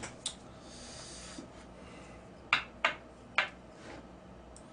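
Chopsticks clicking against a takeout food bowl: three sharp, short clicks in quick succession about halfway through, over faint room background.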